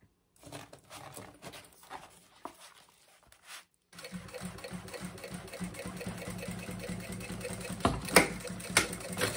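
Sewing machine stitching a seam through layered synthetic vinyl, mesh and lining. It runs steadily from about four seconds in, with a few sharp clicks near the end. Before that there are quieter handling sounds of the material.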